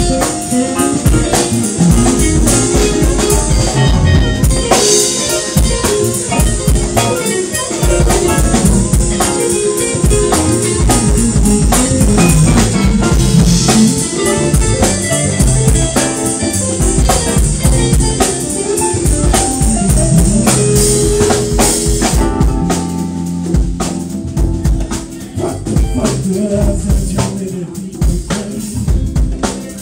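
Live jazz-funk band playing: drum kit with rimshots, electric bass, keyboard, saxophone, guitar and congas. The cymbal-bright top of the sound thins out about two-thirds of the way through.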